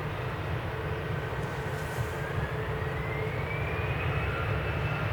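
Airbus A320 jet engines running with a steady rumble and a whine that rises in pitch about halfway through, then holds.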